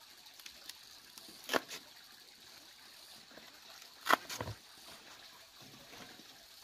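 Two sharp knocks about two and a half seconds apart, the second followed quickly by a couple of smaller clatters, over faint background noise.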